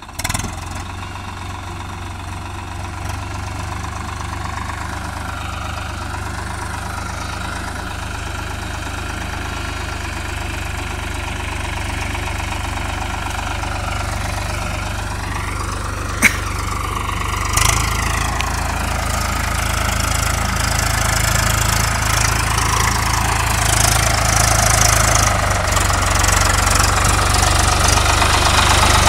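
Swaraj 855 FE four-wheel-drive tractor's diesel engine running steadily as it pulls a load through mud and standing water, growing louder as it comes closer. A single sharp click a little past halfway.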